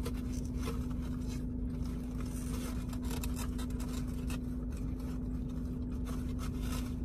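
A steady low hum with a rumble under it, with faint scrapes and clicks of eating from a takeout container.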